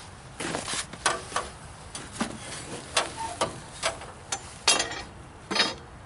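A steel band-saw blade being handled and fitted onto a portable sawmill's band wheels: an irregular run of metallic clinks, clanks and short scrapes as the flexible band knocks and rubs against the wheels and housing, the loudest near the end.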